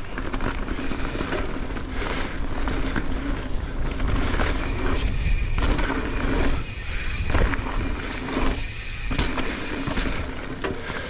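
Mountain bike ridden over a dirt jump line: tyres rolling on dirt with wind rumbling on the microphone, and sharp clacks and rattles from the bike over the bumps.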